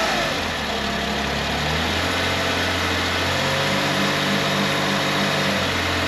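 Suzuki Kei engine running in gear, turning the bare front hub and brake disc, which slows to a stop. In the second half comes a rhythmic knocking, a "gon-gon", about three or four times a second under brake load. The mechanic takes it most likely for a failing driveshaft joint, with a ball joint also suspect.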